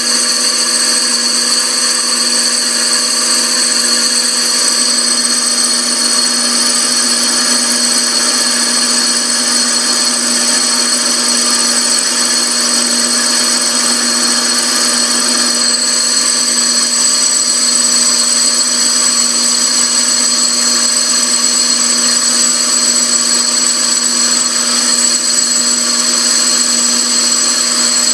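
Lathe motor running steadily with a constant whine.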